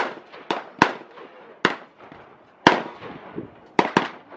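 Handgun shots fired one at a time at an uneven pace, about five loud cracks and a couple of fainter ones, each followed by a short echo.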